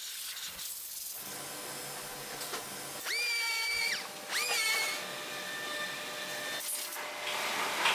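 Steady factory-floor hum with two short high-pitched whines from a small electric motor, like a power screwdriver or drill. Each spins up, holds briefly and winds down: one of about a second, then a shorter one.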